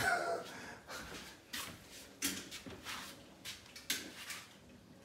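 A few light knocks and clicks, about half a dozen at an uneven pace, over faint room background.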